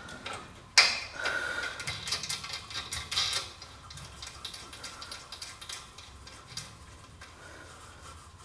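Small metallic clinks and clicks as a nut is threaded by hand onto an air-fill Schrader valve fitting, with a washer, through a hole in the truck's rear frame by the hitch. There is one sharp click about a second in, a run of lighter clicks, then quieter fiddling.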